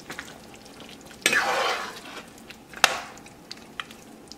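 Metal spoon stirring thick chicken curry gravy in a non-stick pan: a short wet scraping stir about a second in, then a sharp clink of the spoon against the pan, the loudest sound, about three seconds in, with a few light taps between.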